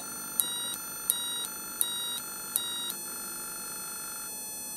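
555-timer electronic doorbell kit sounding a buzzy two-note tone like a police car, switching between high and low about three times a second with a small click at each switch, then holding one steady note about three seconds in that thins near the end. It keeps sounding well past the roughly two seconds it should: an overlong delay.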